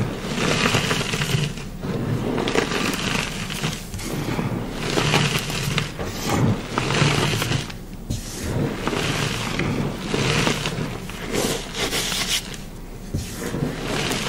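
Chalk being crushed and crumbled by hand: a run of crunches, roughly one a second, each with a gritty scraping crumble.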